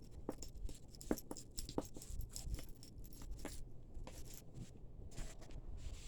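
Irregular small clicks and scrapes, several a second, from close handling of small hard objects.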